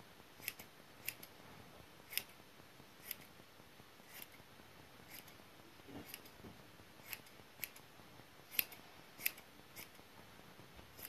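Grooming shears snipping the hair around a Maltese's foot: a dozen or so short, sharp snips, spaced irregularly about a second apart.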